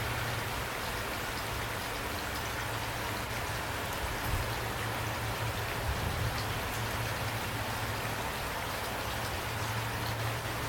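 Steady rain falling, with many distinct drop hits over an even wash of rain noise and a steady low hum underneath.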